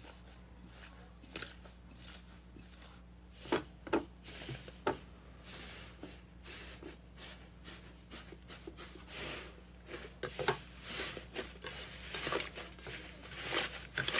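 Slime being squished and worked by hand: a dense, irregular run of wet clicks, pops and crackles that starts about three and a half seconds in.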